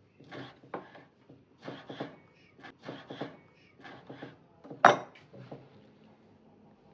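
Irregular knocks and clatter of kitchen things being handled, about a dozen in all, with one sharper, louder knock about five seconds in.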